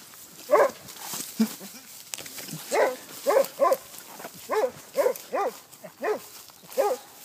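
A hound baying on a scent trail: about nine short barks, each rising and falling in pitch, given singly and in quick pairs.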